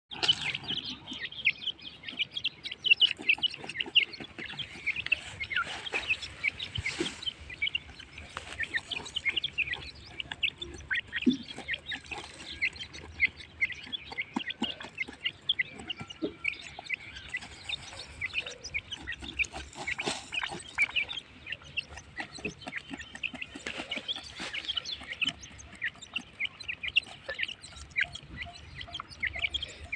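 Teetar (francolins) calling: many quick, short chirps and clucks, densely overlapping.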